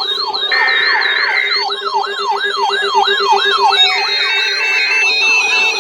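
Several electronic emergency siren tones sound at once. One wails up and down about three times a second, a faster warble runs higher up, and a low tone pulses steadily underneath. Blocks of steady buzzing tone, each about a second long, cut in near the start and again near the end.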